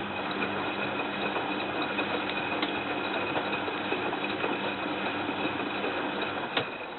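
Tricity Bendix AW440 washing machine running mid-wash: a steady motor hum with a thin high whine. It cuts off with a sharp click near the end.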